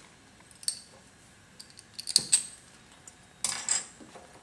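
Laboratory gas burner being lit: a few sharp metallic clicks and scrapes, then a brief hiss about three and a half seconds in.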